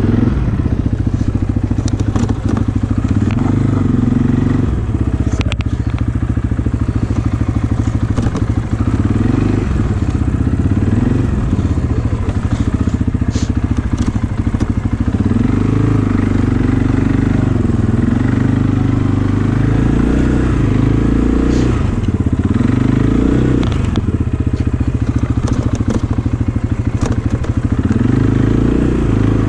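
ATV engine running and revving up and down repeatedly.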